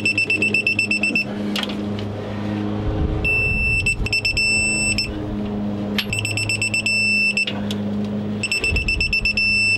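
Fast, high-pitched electronic beeping in five stretches with short gaps between them, over a steady low hum, with a few sharp clicks.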